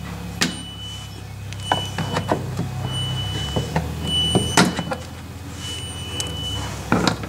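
Irregular sharp clicks and knocks of a trim tool prying plastic push clips out of a Jeep Gladiator's front bumper fascia, over a steady low hum.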